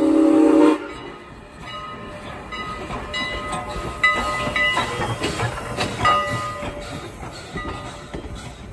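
Steam whistle of Canadian National 2-6-0 Mogul No. 89 sounding and cutting off sharply about a second in. It is followed by the locomotive and coaches running past, with rail noise, brief high tones and a few sharp jolts.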